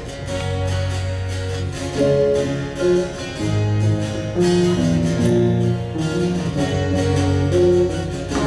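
A live rock band plays a song: strummed acoustic guitar with electric guitar, bass line, cajon and piano, over a steady beat and a melody of held notes.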